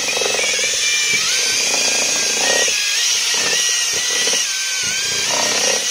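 Cordless drill-driver spinning a paddle mixer in a bucket of wall putty: a steady motor whine that wavers slightly in pitch, with the paddle churning through the thick putty.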